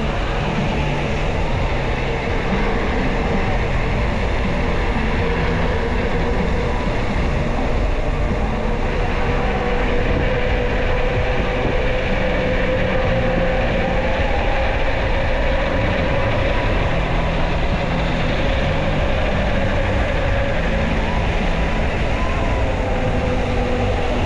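Wind buffeting the microphone of a moving bike, a steady rushing roar with a whine that wavers slightly in pitch.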